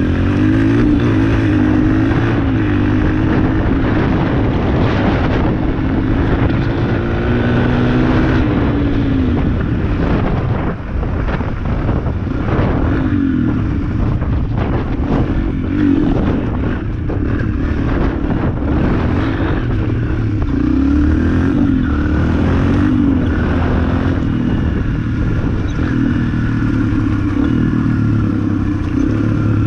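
Yamaha dirt bike engine running under way, its pitch rising and falling as the throttle is worked, with a brief dip about eleven seconds in. Wind rush and short buffets on the helmet-camera microphone.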